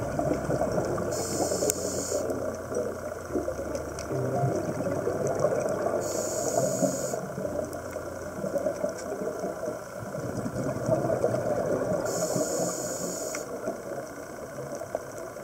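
A scuba diver breathing through a regulator, heard underwater: a short hiss of inhalation about every six seconds, with bubbling exhaust between.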